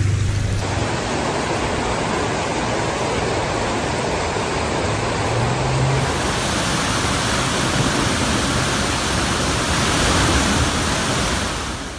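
Steady rushing noise of heavy rain and running floodwater on a street. The sound changes slightly about a second in and again about halfway through, where the footage cuts.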